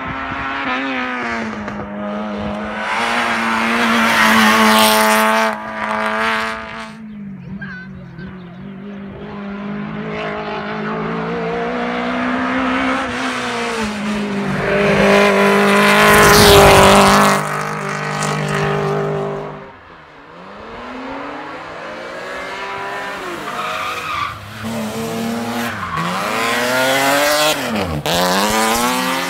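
Hill-climb race cars, among them an old Lada saloon, accelerating hard through a hairpin: engines revving high and dropping at each gear change, rising and falling several times as the cars pass, loudest as one goes by about halfway through.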